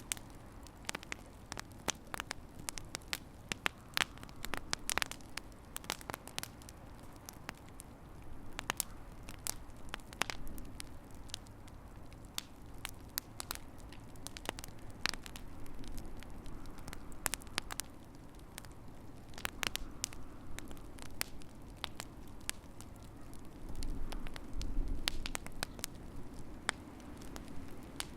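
Wood fire in a fireplace crackling, with irregular sharp pops and snaps over a steady low rumble of the flames.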